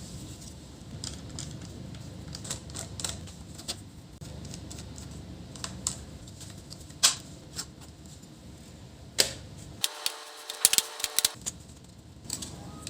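Scattered sharp clicks and taps of small tools on laptop plastic and metal during disassembly, irregular and spaced a second or so apart. The clicks come in a quicker cluster about ten seconds in.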